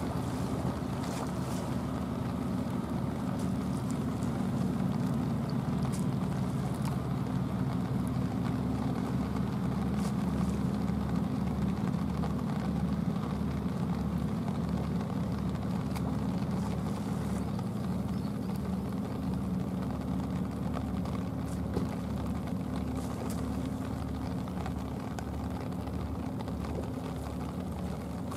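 High-speed passenger boat's engines running steadily as it passes across the water. The drone grows louder toward the middle, as the boat comes closest, and eases off near the end.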